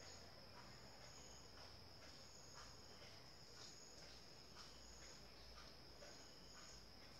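Near silence: faint room tone with a steady high-pitched hum and a few soft, faint ticks.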